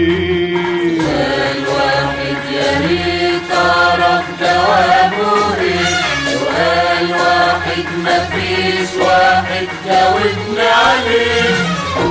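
Egyptian Arabic song music: an ensemble plays a sliding, ornamented melody over steady low notes.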